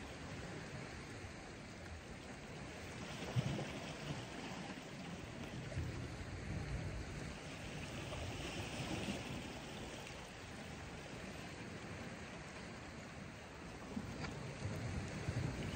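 Sea washing against shoreline rocks, a steady hiss that swells and fades every few seconds, with one brief knock about three seconds in.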